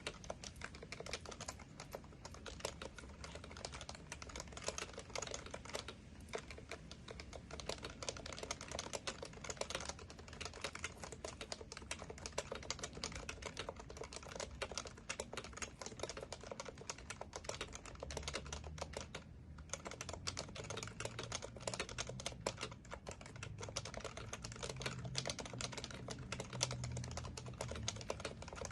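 Continuous fast typing on an HHKB Professional Classic keyboard, its Topre electro-capacitive switches giving a dense run of keystrokes, with one short pause about two-thirds of the way through.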